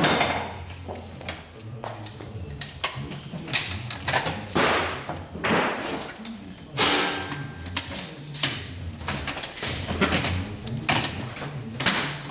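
Metal shopping-trolley frame knocking and clattering as a fabric bag is pulled on and fitted by hand. The knocks and thuds are irregular and come every second or so.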